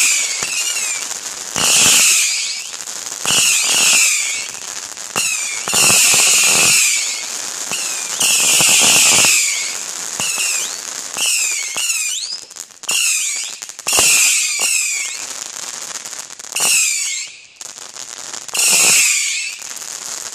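WECO Lord of Whistle 300-shot whistler firework battery firing: about a dozen loud volleys, each a cluster of shrill whistles gliding in pitch, mixed with cracks and crackling, one every second or two.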